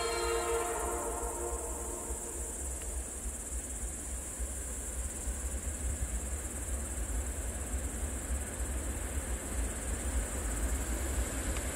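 The tail of a Nathan Airchime P3 horn chord dies away in the first second. Then crickets chirp steadily over the low drone of an approaching GE C36-7i diesel locomotive, which grows slightly louder toward the end.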